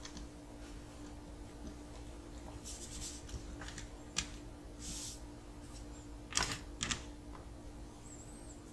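Small plastic and metal RC-car parts handled on a workbench: scattered light clicks and rustles, with a sharper pair of clicks near the end, over a faint steady hum.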